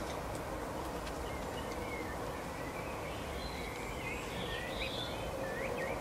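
Small songbirds chirping in short, quick notes, more often in the second half, over a steady hiss and faint hum.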